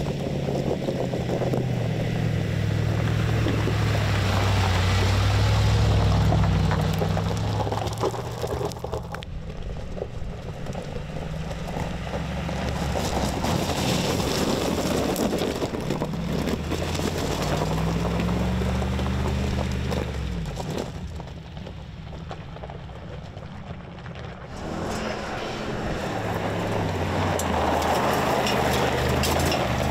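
Mercedes-AMG G63's twin-turbo V8 engine pulling off-road, its note rising and falling several times as the driver gets on and off the throttle, with tyres running over loose gravel. It eases to its quietest a little after twenty seconds in, then picks up again.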